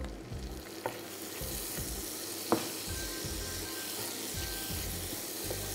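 Diced red onion and garlic sizzling steadily in olive oil and butter in a frying pan, sweating over medium heat. A wooden spoon stirring them knocks lightly against the pan a few times.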